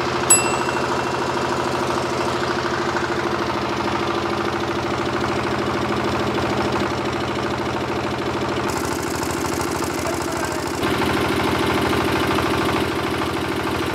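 Single-cylinder diesel engine of a generator set running steadily with its air filter removed while hand sanitizer is sprayed into the open intake; its note stays unchanged by the spray. It gets slightly louder for a couple of seconds about eleven seconds in.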